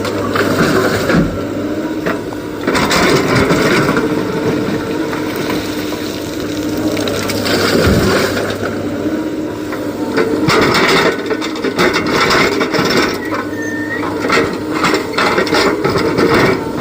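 Excavator working rock: a heavy diesel engine runs steadily under stone crunching, scraping and clattering, with the knocks thickest in the second half.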